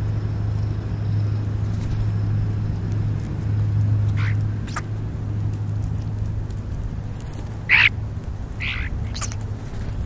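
European starlings at a food pile, giving a few short, harsh calls, the loudest about three-quarters of the way through, over a steady low hum.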